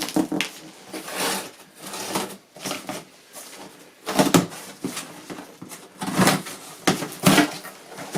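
Cardboard shipping box being opened by hand: irregular rustling, scraping and tearing of cardboard and packing, with louder strokes about four, six and seven seconds in.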